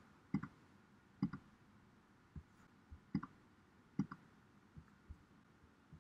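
Faint computer clicks while working through on-screen menus, about a dozen short clicks, several coming in quick pairs like double clicks.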